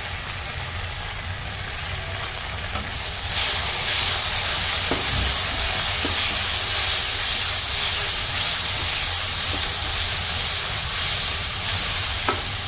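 Shredded potatoes and onion sizzling in hot oil in a kadai, stirred with a metal spatula that scrapes against the pan now and then. The sizzle grows louder about three seconds in.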